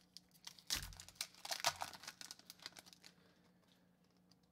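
A hockey card pack's wrapper being torn open and crinkled by hand: a run of sharp crinkles and rips that stops about three seconds in.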